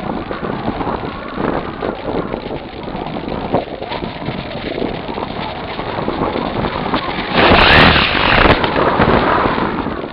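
Wind rushing over the onboard camera's microphone of an electric model glider in flight, a rough, unpitched rush that swells loudest about three-quarters of the way through.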